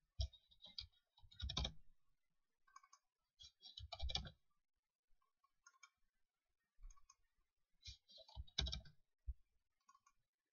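Faint computer keyboard typing and mouse clicks, coming in short scattered clusters a second or two apart.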